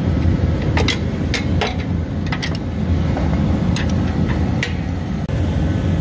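Wrenches working a bolt on an ATV snow plow's spring mount: a handful of short, sharp metallic clicks and clinks scattered over the first five seconds, over a steady, loud low mechanical hum.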